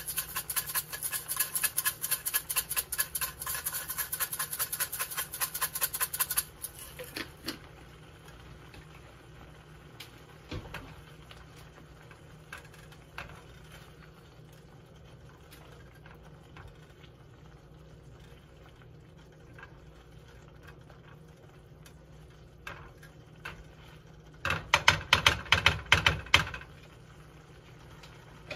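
Seasoning shaken from a spice container over a pan of tomato sauce: a fast rattling run for the first six seconds or so, then a quieter stretch with a few light taps while the sauce is stirred, and a second, louder burst of quick rattling strokes about 25 seconds in.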